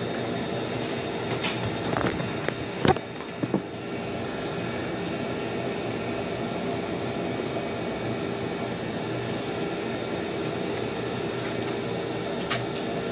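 Steady machine hum with a few sharp clicks and knocks in the first few seconds, the loudest about three seconds in.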